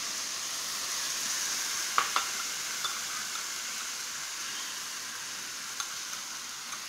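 Minced mutton and onions sizzling in a nonstick frying pan while being stirred with a wooden spoon: a steady frying hiss with two sharp knocks about two seconds in.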